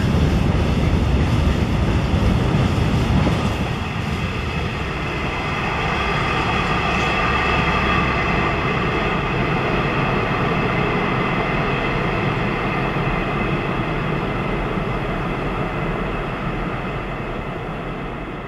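Freight train wagons rolling along the track and receding, with a steady high ringing over the rolling noise. Louder for the first few seconds, then steadier, and fading out near the end.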